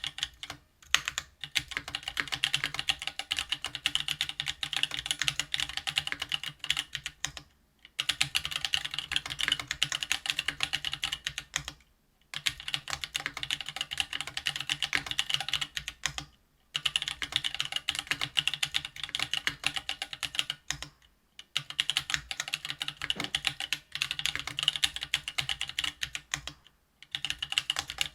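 Typing on a RAMA THERMAL custom mechanical keyboard with stock Ethereal Panda tactile 68 g switches. The keystrokes come as a dense clatter of clicks in runs of several seconds, each broken by a brief pause.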